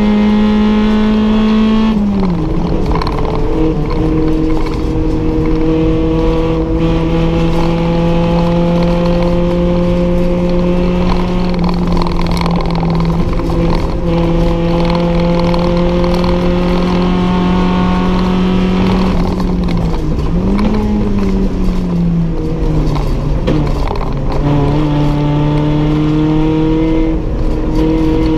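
Toyota 4A-GE 1.6-litre four-cylinder racing engine heard from inside the stripped cabin, running hard at high revs. Its pitch drops about two seconds in, then holds and slowly climbs, dips and recovers around two-thirds of the way through, falls again, and climbs back near the end.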